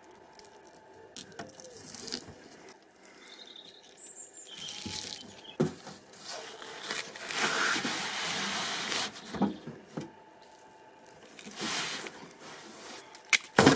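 Catshark skin being pulled and torn away from the flesh by hand: wet, rasping tearing noises, the longest and loudest stretch about halfway through, with a few sharp clicks and snaps.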